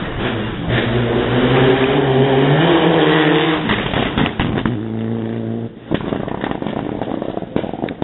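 Citroën DS3 rally car accelerating hard past on a tarmac stage, its engine note climbing steadily for a few seconds, then a gear change and more full-throttle running. Several sharp cracks follow near the end.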